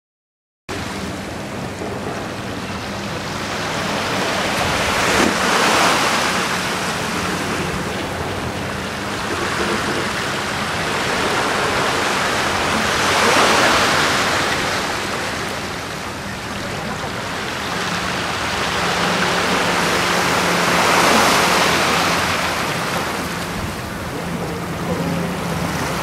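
Small waves washing onto a sandy beach, a rushing wash that swells and falls away about every seven or eight seconds. A faint steady low hum runs underneath.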